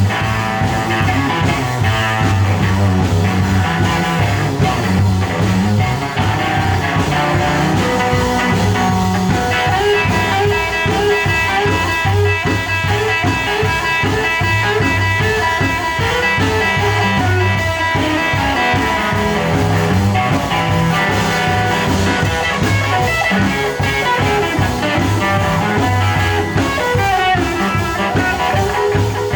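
Live blues band playing an instrumental stretch of a swinging blues song, guitar to the fore over bass and drums.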